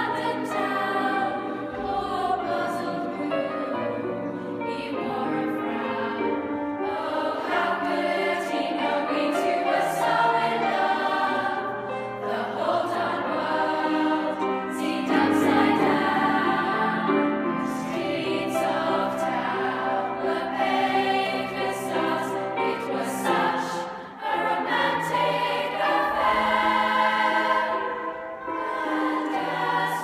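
A girls' school choir singing a slow song in several-part harmony, with long held notes and a brief break between phrases about three-quarters of the way through.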